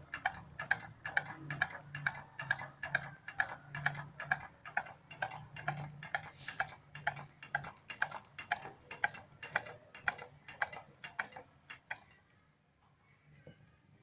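Simple homemade Stirling engine running with a rhythmic clicking, about four clicks a second, slowing down and stopping about twelve seconds in.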